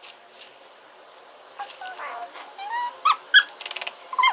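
Several short, high cries from a pet animal, gliding up and down in pitch, from about two seconds in, with a quick run of clicks just before the last cry near the end.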